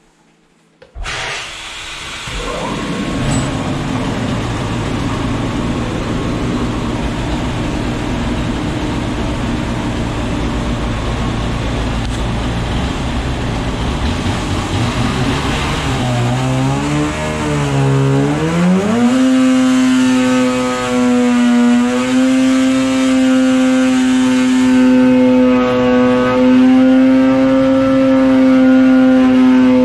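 Polaris Axys 800 snowmobile's two-stroke twin, on stock pipe and silencer, pulling on a dyno. It starts with a rough, unsteady running sound about a second in. Its pitch wavers and then climbs to a steady high note held at wide-open throttle near 7,700–8,000 rpm for the last ten seconds.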